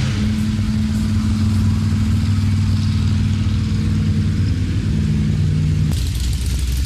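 Classic cars' engines running low and steady as the cars drive slowly past in a cruise; the engine note changes about six seconds in.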